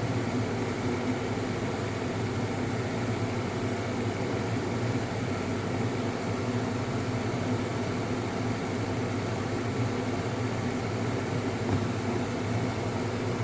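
Steady machine hum with a constant low drone and hiss, unchanging throughout.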